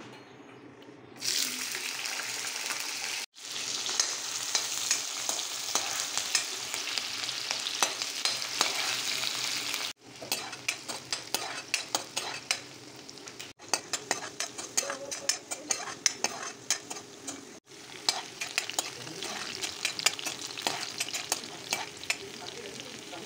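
Chopped onions and green chillies sizzling as they fry in hot oil in a kadai, starting loud about a second in, with a spatula scraping and clicking against the pan as they are stirred.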